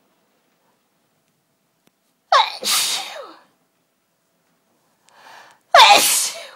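A woman sneezing forcefully twice, about three and a half seconds apart, the second sneeze after a short sharp in-breath.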